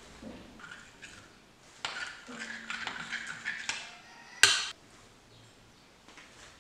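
Metal spoon stirring and scraping in a glass mixing bowl, a quick run of clicks, then one sharp clink of the spoon knocked against the glass about four and a half seconds in.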